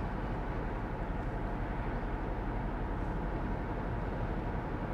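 Steady in-cabin road noise of a high-top vehicle driving at a constant speed: an even rumble of engine and tyres.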